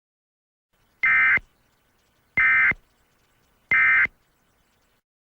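Emergency Alert System end-of-message signal: three short bursts of digital data tones, just over a second apart, marking the end of the alert.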